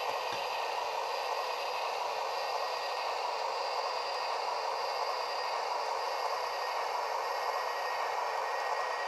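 A steady hiss, strongest in the middle range, with faint steady high tones running through it and no change in level.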